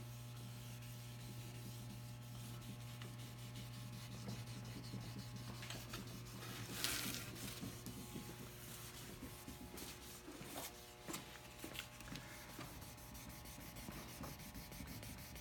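Faint rubbing of wet 3000-grit sandpaper worked by hand over the soapy varnish of a mahogany hull, over a steady low hum. A short hiss comes about seven seconds in.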